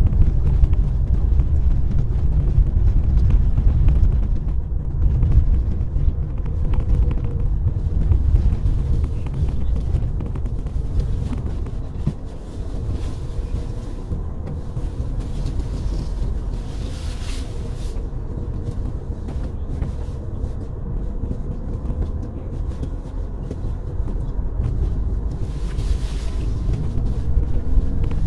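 Car driving on a snow-covered road: a steady low rumble of engine and tyres with a faint constant hum, easing slightly about twelve seconds in.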